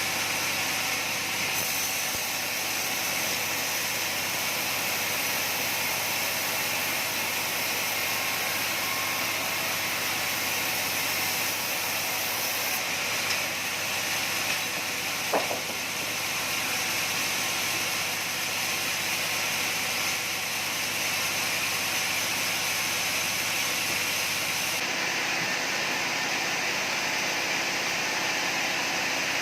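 Sawmill machinery running steadily: a constant, fairly high rushing noise with faint steady machine tones, and a single brief knock about halfway through.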